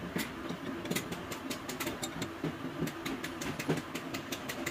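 Irregular sharp clicks and light taps of metal on metal as hands work on a bare diesel bus engine block, over a steady low background hum.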